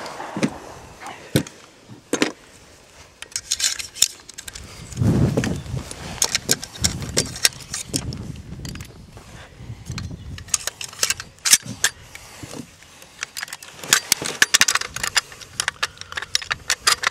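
Metal clicks and rattles of a disassembled rifle's parts being handled and fitted together by gloved hands, with many sharp clicks throughout and a few dull knocks about five to ten seconds in.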